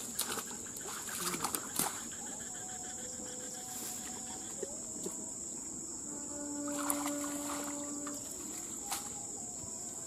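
Steady high-pitched chirring of insects, with short splashes and sloshing of shallow water as a person wades and moves a mosquito-net fish trap, clustered in the first two seconds and again about seven and nine seconds in. A steady low tone sounds for about two seconds from around six seconds in.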